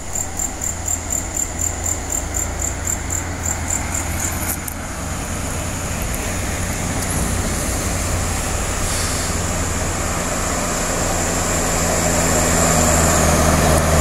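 Low engine rumble of heavy road vehicles approaching up the climb, growing louder toward the end. For the first few seconds a high chirping pulses about three times a second over it, then stops.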